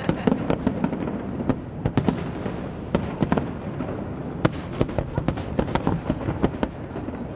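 Aerial fireworks bursting in quick, irregular succession, several sharp cracks a second over a continuous low rumble of booms.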